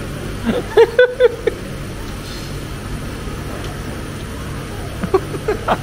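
Steady low hum of restaurant room noise, with a few short snatches of voice about half a second to a second and a half in and again near the end.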